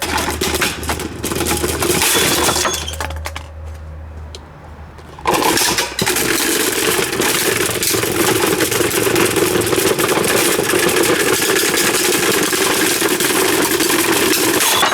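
Damaged vintage Super Deluxe electric table fan running with a loud, steady rattling mechanical noise. About three seconds in it falls to a low electrical hum for roughly two seconds, then the noise comes back abruptly and runs on, typical of a fan that keeps getting stuck.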